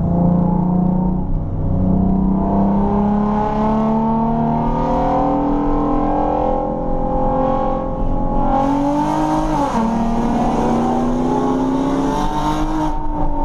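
Hyundai Genesis 3.8 V6 and supercharged Ford Lightning pickup racing at full throttle, the engine pitch climbing through the gears and dropping back at each shift, with one clear shift about two-thirds in.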